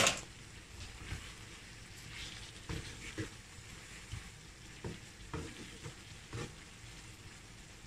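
Wooden spatula stirring chicken keema in a nonstick frying pan, with several scrapes and knocks against the pan over a faint sizzle of the mince frying in oil.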